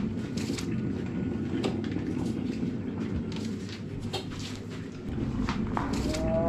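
Steady low rumble with scattered clicks and knocks from handling and movement. Near the end a cat's meow begins, slowed down into a low, drawn-out call that rises slightly and then falls.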